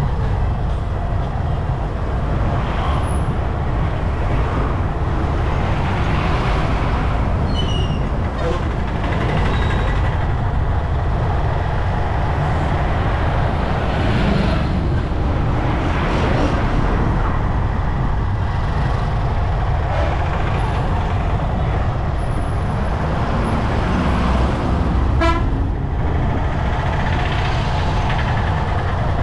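Wind and road noise from a moving motorbike, with a steady low rumble and the swelling noise of other vehicles passing several times. A vehicle horn toots briefly near the end.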